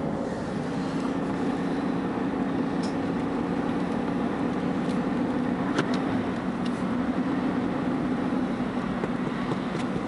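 A car driving along a road, heard from inside the cabin: steady engine and tyre noise.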